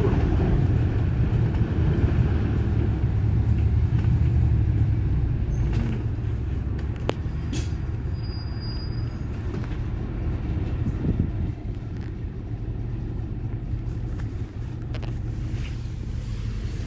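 A city bus running, heard from on board: a steady low engine and road rumble, with a couple of sharp clicks and a short high beep about eight seconds in.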